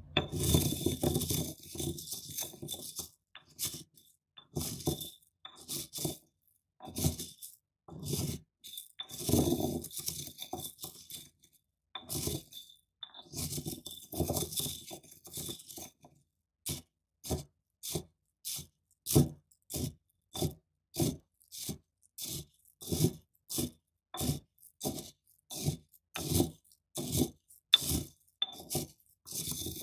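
Corn kernels being crushed in a stone bowl: irregular crunching and scraping at first, then from about halfway short, even strokes at about two a second.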